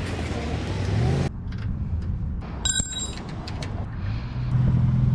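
Low rumble of a motor vehicle's engine, its pitch rising about a second in and again near the end, with a brief bright metallic ring and light clicks of bike parts being handled about two and a half seconds in.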